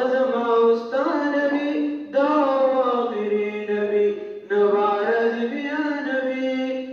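A boy's solo voice chanting a Pashto naat unaccompanied, in long held melodic phrases with short breaths about two and four and a half seconds in.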